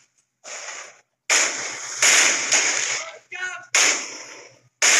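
Gunfire in a combat zone: about six rifle shots at irregular intervals, each a sharp crack followed by an echoing tail. A short shout comes in between the shots a little past the middle.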